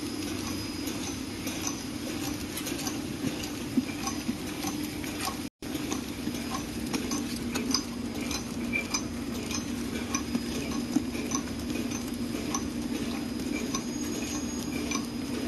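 Horizontal flow-wrap (pillow-pack) packing machine running: a steady hum with repeated light ticking clicks from its mechanism as it wraps small boxed snacks in film. The sound drops out for a moment about five and a half seconds in.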